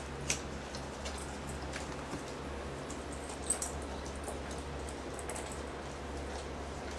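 A dog licking and nibbling at another dog's paw, making small wet smacks and clicks, with a sharper click about a third of a second in and another about three and a half seconds in. A low steady hum runs underneath.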